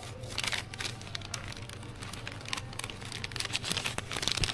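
Crinkling, rustling handling noise with many irregular small clicks, over a low steady hum.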